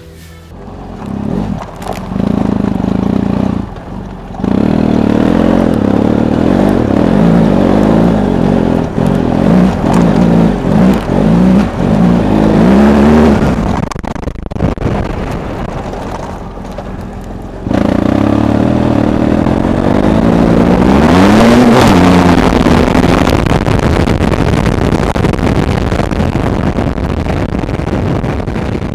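BMW F800GS parallel-twin engine through a Metal Mule aftermarket exhaust, revved repeatedly in short blips. Later it runs steadily, with one rise and fall in pitch a little past two-thirds of the way in.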